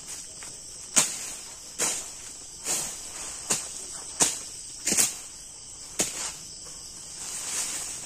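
Crickets chirring steadily in a high, even band, broken by sharp snaps, thuds and rustles roughly once a second as brush and sticks are pulled and cleared from the ground by hand.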